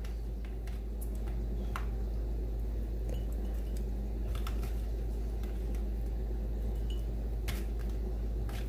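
Scattered light taps and clinks of cucumber slices being packed by hand into glass mason jars and picked from a plastic colander, over a steady low hum.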